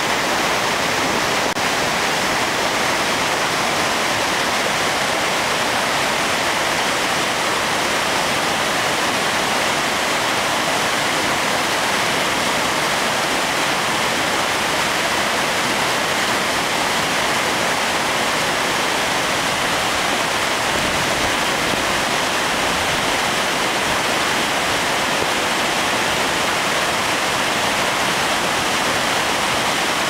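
Large waterfall in heavy flow, plunging into a rocky pool and churning into rapids: a loud, steady rush of water with no breaks.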